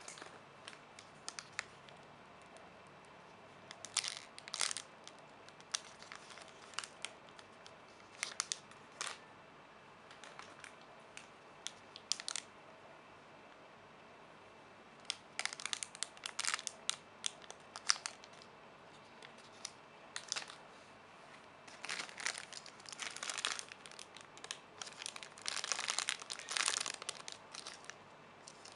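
Plastic packaging crinkling and rustling in short, irregular bouts as it is handled, busiest in the second half.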